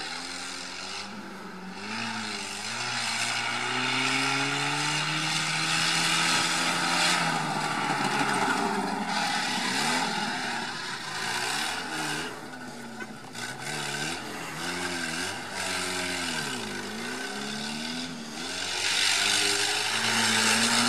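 Stock UAZ off-roader's engine working hard on an off-road sprint course, its pitch rising and falling repeatedly as the driver goes on and off the throttle, with several sharp dips.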